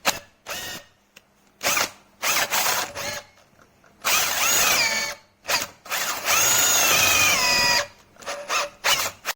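AEG 18V brushless compact hammer drill-driver run in short trigger blips, then two longer runs of a few seconds in the middle. In each longer run the motor whine spins up, holds, and falls in pitch as it winds down.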